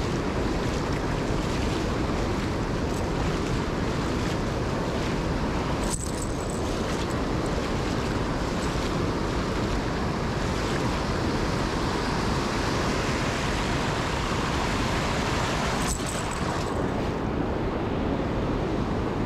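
Steady rushing noise of wind and moving water, with wind buffeting the microphone.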